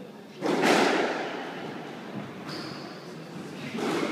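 Squash ball struck hard by a racket and cracking off the front wall about half a second in, echoing around the court. A second, softer shot follows near the end, with a short high squeak between the two.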